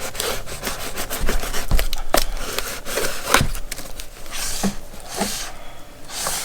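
Cardboard packaging being handled and unwrapped: rubbing and scraping with a few light knocks and a couple of swishing slides.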